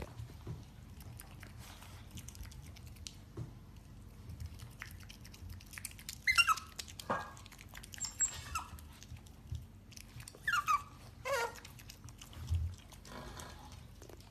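Otters eating, with wet chewing and crunching clicks, and from about halfway through several short squeaky calls that each fall sharply in pitch.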